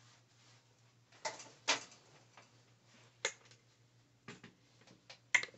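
A handful of short clicks and light knocks, about six spread over several seconds, from handling the camera and sewing things, over a faint steady low hum.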